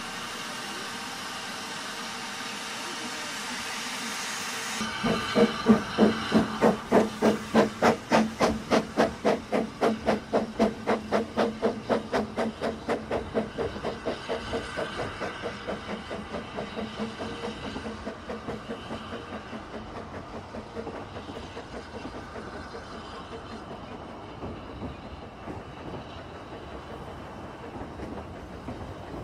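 Narrow-gauge steam locomotive, likely Blanche, hissing steam while standing. About five seconds in the hiss cuts off and it pulls away with loud, even exhaust beats at about two a second. The beats fade as the train draws off, leaving its carriages rolling and clicking over the rail joints.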